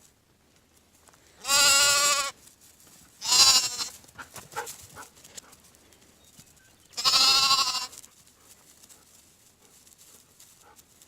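Goat bleating: three loud, wavering bleats, each under a second long, about one and a half, three and a half and seven seconds in.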